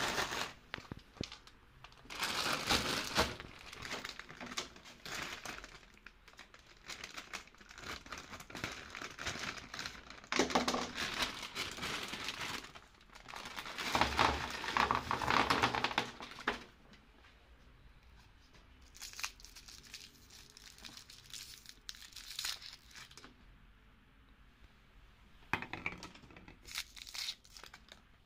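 Crinkling and tearing of plastic candy packaging in irregular bursts, loudest in the first half: a bag of lollipops being handled and opened, then the wrappers picked off the lollipops.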